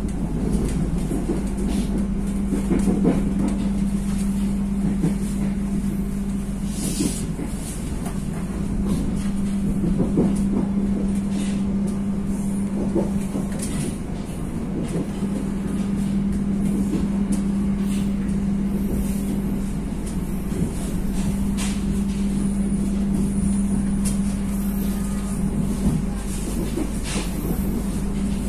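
Passenger train sound: a steady rumble under a constant low hum, with scattered short clicks and knocks.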